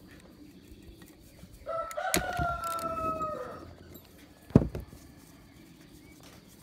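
A rooster crowing once: one call of almost two seconds, falling slightly at the end. A sharp knock comes about four and a half seconds in.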